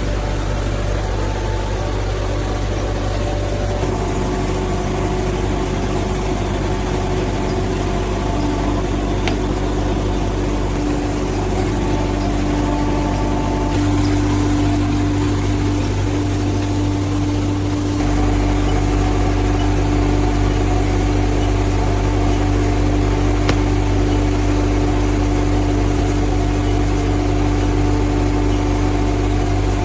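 Cardboard factory machinery running steadily: a continuous mechanical hum with several held tones and a strong low drone. It gets a little louder about halfway through and again a few seconds later.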